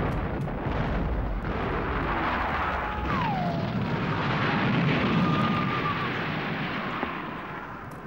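Battle noise from a pyrotechnic ground charge that bursts at the start, its rumble running on for several seconds before fading near the end. Men shout over it, one cry falling in pitch about three seconds in.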